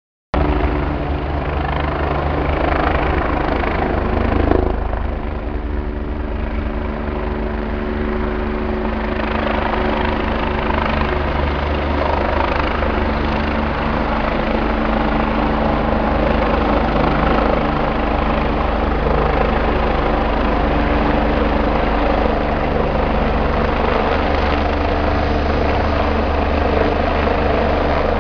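EMERCOM rescue helicopter flying in to land: a steady low rotor throb with a few steady engine tones over it, loud throughout. A brief thump about four and a half seconds in.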